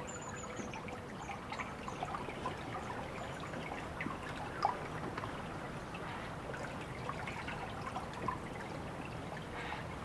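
Trickling water with many small drips and splashes as a steady ambience bed. A brief high chirp sounds about half a second in.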